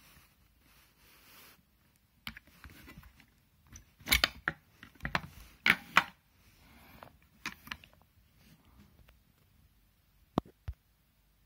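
Plastic case of an Amazon Basics speaker being worked open by hand: a run of cracks, snaps and scraping as the clips give, loudest between about four and six seconds in, then two sharp clicks near the end.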